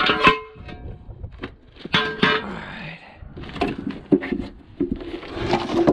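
Metal tools and parts clanking and scraping as they are handled, several sharp metallic clanks with brief ringing, the first right at the start and another about two seconds in.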